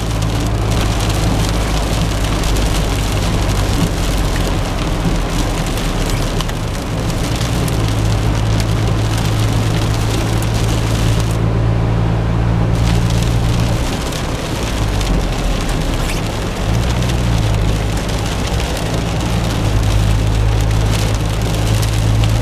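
Inside a car driving on a rain-wet highway: a steady low engine and road hum under a constant hiss of rain and tyre spray, the hum shifting in pitch briefly past the middle.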